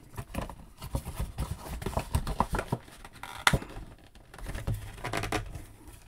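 Cardboard toy window box being opened and handled: scattered taps, rustles and scrapes of cardboard and the plastic tray inside, with a sharper click about three and a half seconds in.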